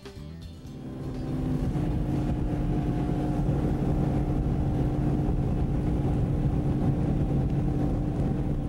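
Outboard motor of a Ranger bass boat running across open water: a steady engine drone over a rushing noise. It builds over the first second and a half, then holds steady.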